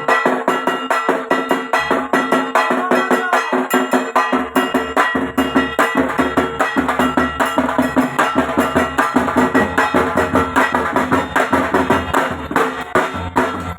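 Dhak drums beaten with wooden sticks in a fast, steady rhythm, with a deeper booming layer joining after about four seconds.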